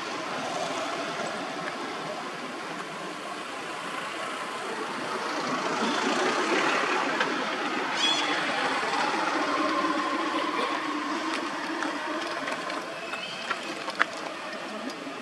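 Distant vehicle engine noise that rises in the middle and then eases off, with a single sharp click near the end.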